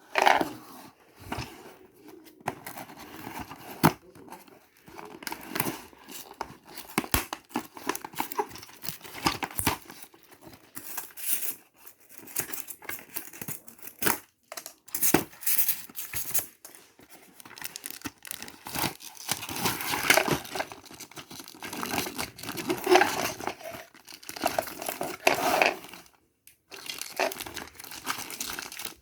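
Packaging being crinkled and torn open by hand: irregular rustling with many small clicks and crackles, louder in the last third.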